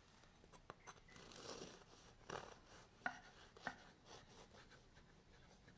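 Serrated bread knife sawing through the crust of a baked chocolate babka loaf on a wooden board: faint rasping strokes with a few sharper clicks.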